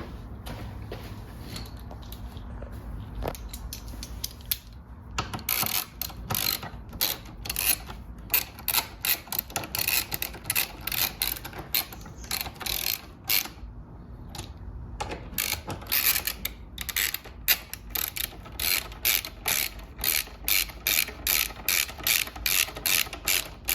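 Ratcheting wrench with a 5mm Allen bit tightening down fairing bolts: two runs of rapid clicking from the pawl, starting about five seconds in, with a short pause in the middle.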